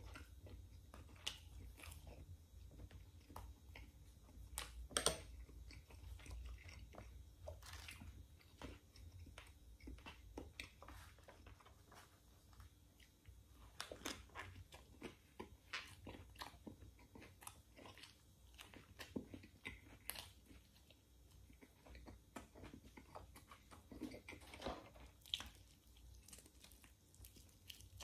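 Faint, close-miked chewing and biting of pita bread and rotisserie chicken: soft mouth sounds with scattered wet clicks and smacks, one louder smack about five seconds in.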